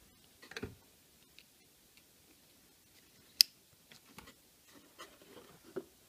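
Insulated spade connectors being pushed onto the terminals of a coffee maker's rocker power switch: soft plastic handling and rustling of the panel and wires, with one sharp click about three and a half seconds in.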